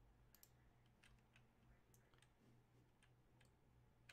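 Near silence with a dozen or so faint, irregular clicks of computer keys being pressed.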